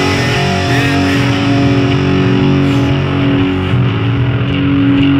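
Live heavy rock band: distorted electric guitar and bass playing, with a low guitar note held and ringing on from about a second in.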